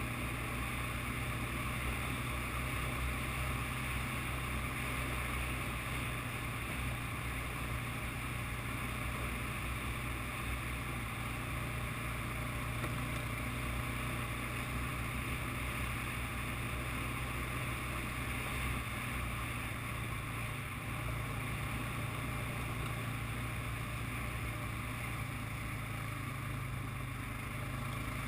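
ATV engine running steadily while being ridden, holding an even drone with no change in pace.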